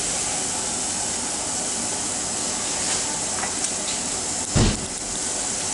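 Garlic sauce sizzling and hissing steadily in a frying pan over a gas burner. About four and a half seconds in there is a single thump as a handful of small pieces is dropped into the pan.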